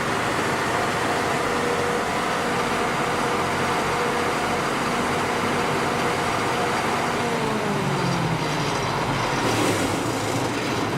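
Cummins 6BT5.9 turbocharged inline-six diesel engine of a 100 kW generator set running steadily. Some of its tones slide down in pitch about three quarters of the way through, as the engine slows.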